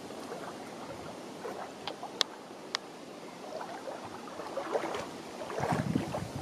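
Lake water lapping, with a few sharp clicks about two to three seconds in; the water grows a little louder and busier in the second half.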